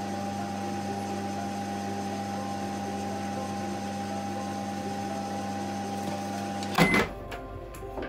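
Microwave oven running with a steady hum, which runs but is not heating. It stops about seven seconds in with a brief high beep and a clunk.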